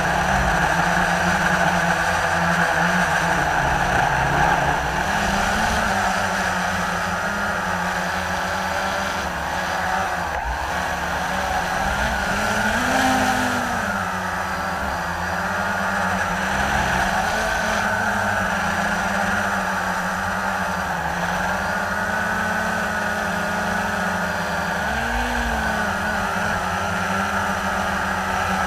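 Blade 350 QX3 quadcopter's brushless motors and propellers whining steadily, heard from the drone's own camera. The pitch wavers up and down as it manoeuvres, dipping and rising sharply about 13 seconds in and again near 25 seconds.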